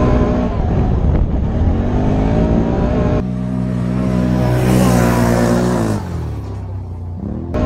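Can-Am Outlander ATV engine revving and accelerating hard in soft sand, heard from on board. Then, from beside the track, the quad revs past, with a rush of noise as it goes by about five seconds in, and its engine note drops as it moves away.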